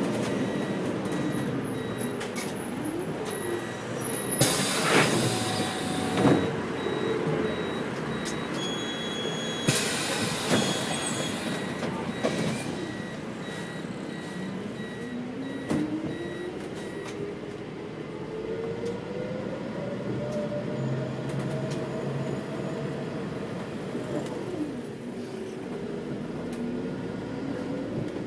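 City bus heard from inside: two loud hisses of compressed air about five and ten seconds in while it stands at a stop. The engine then pulls away, its pitch rising for several seconds before dropping back.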